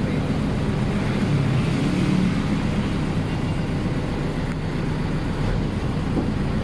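Engine and road noise of an open-sided shuttle tram driving along, heard from a passenger bench on board: a steady low hum with a haze of rumble and wind.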